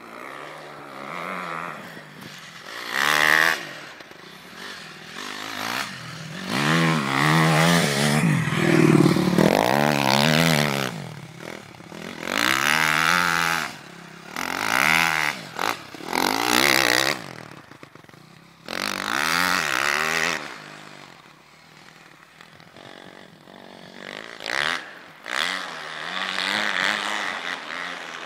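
2009 Honda 250 dirt bike's single-cylinder four-stroke engine revving in repeated bursts as the bike rides through snow, its pitch rising and falling with each burst and dropping back between them.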